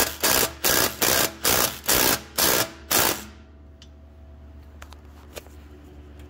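Impact wrench fired in about eight short, rapid bursts, roughly three a second, then stopping about three seconds in: it is drawing up the belt-tensioning rod to tighten the fan belts. A few faint ticks follow.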